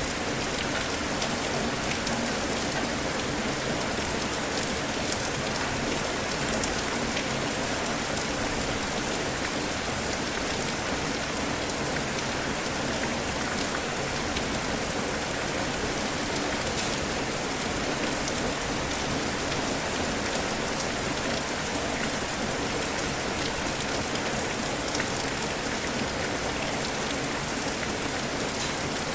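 Steady rain falling on a surface, an even hiss with scattered drop ticks.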